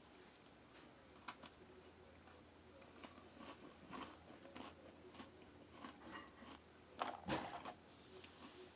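Faint crunching and chewing of a dry ration cracker spread with strawberry jam as it is bitten into and eaten, with irregular crisp crunches that come loudest in a cluster about seven seconds in.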